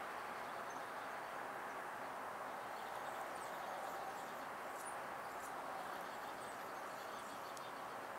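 Steady outdoor background noise, an even hiss-like hum, with faint, short high-pitched chirps scattered through the second half.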